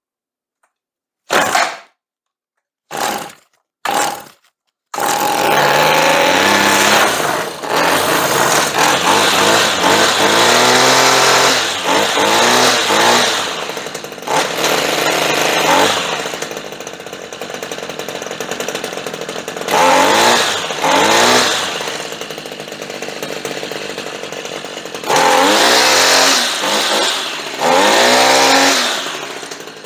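Redmax two-stroke string trimmer engine: three short bursts as it is pull-started, then it catches about five seconds in and runs, revved up and down several times. It starts and sounds good now that its nearly closed spark plug gap has been opened up.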